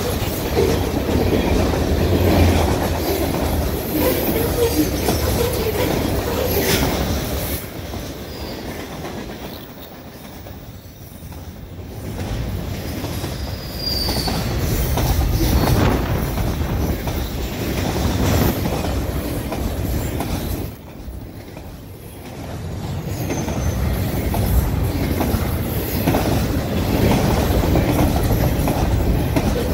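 Freight cars of a long mixed manifest train rolling past at close range: steady wheel and rail noise with clicking over rail joints, easing off for a moment twice. A short, high wheel squeal about fourteen seconds in, from wheel flanges on the curve.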